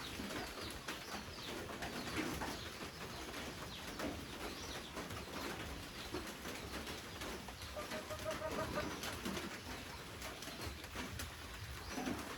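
Steady rain with drops pattering and ticking, while a pigeon coos softly now and then.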